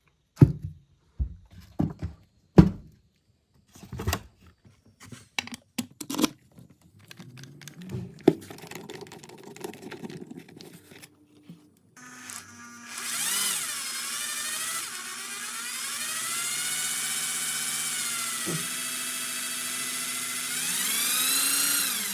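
A series of sharp knocks and clinks, as of metal tool parts being handled and set down. About halfway through, a small power tool starts up and runs with a high whine, its pitch dipping a few times.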